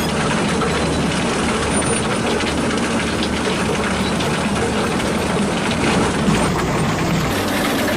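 Small electric motors of a homemade miniature model machine running steadily, a continuous mechanical whirring noise.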